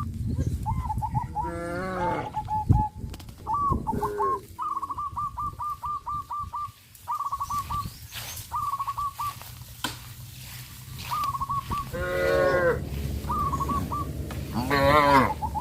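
Cattle mooing several times, with bouts of short, rapid chattering trills in between and a steady low hum underneath.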